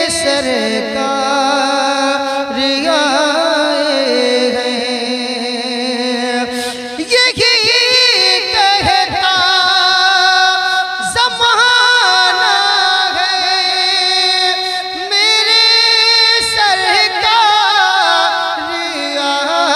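A man singing a naat, an Urdu devotional poem in praise of the Prophet, in long held notes that waver and ornament up and down.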